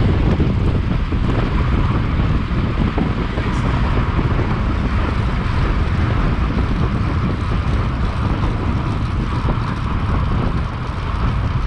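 Wind buffeting the microphone: a steady low rumble with a noisy hiss above it.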